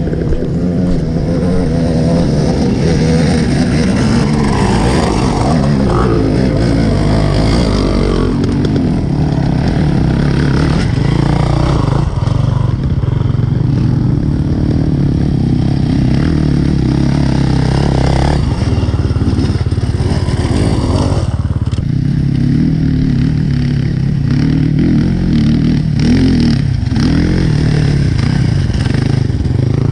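Dirt bike engine running loudly on a rocky trail climb, its pitch rising and falling with the throttle.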